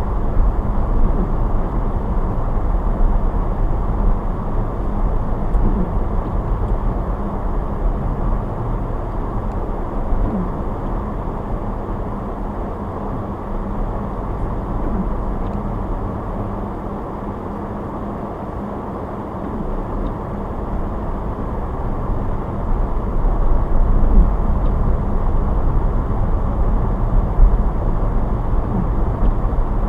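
A car being driven, with a steady low rumble of engine and tyre noise. It eases off about halfway through and grows louder again near the end.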